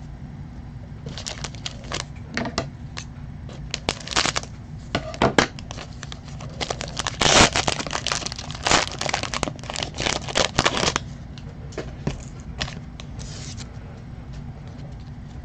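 Foil wrapper of a baseball card pack being torn open and crumpled: a run of crackling crinkles, thickest in the middle and thinning out near the end.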